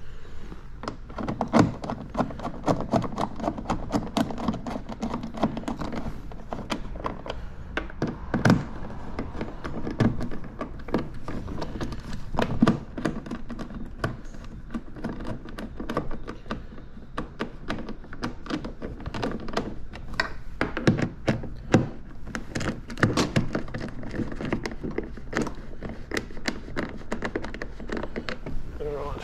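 Hand tools working bolts into the hard plastic body panels of a Kawasaki Ultra 310 jet ski: a socket ratchet turning, with many quick clicks and knocks of tool and plastic and a few louder thuds, the clearest near 1.5, 8.5, 10, 12.5, 22 and 23 seconds in.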